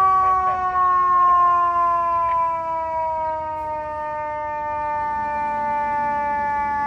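Federal Signal eQ2B electronic siren on a 2022 Seagrave Attacker fire engine sounding its mechanical-Q-style wail, the pitch sliding slowly and steadily down as it winds down.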